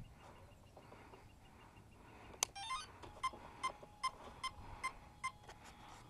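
A sharp snap as the flight battery is plugged in. The electric RC plane's speed controller then plays a quick rising run of tones through the motor, followed by six short, evenly spaced beeps, about two and a half a second, as it arms.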